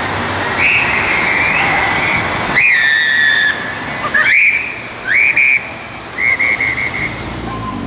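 Shrill high-pitched warning tones sound several times over passing traffic: each rises at its start and then holds for a moment, followed near the end by a quick run of about six short blasts.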